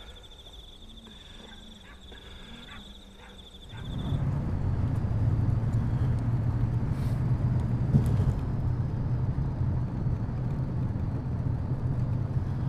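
A quiet rural evening with a steady high insect trill. About four seconds in it switches suddenly to the steady low rumble of a car's engine and road noise, heard from inside the cabin.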